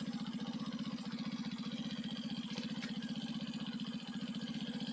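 Motorcycle engine idling steadily with a fast, even putter.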